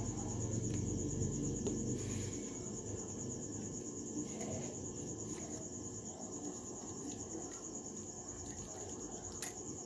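Steady high-pitched insect trill running without a break. A low hum fades out in the first couple of seconds, and a few faint clicks come near the end.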